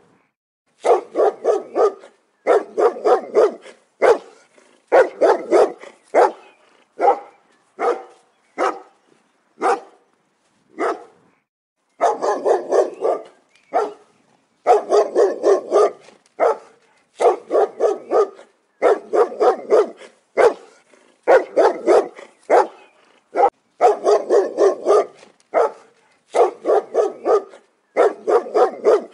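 Large dog barking angrily in quick volleys of about three to five barks, with short silent pauses between the volleys.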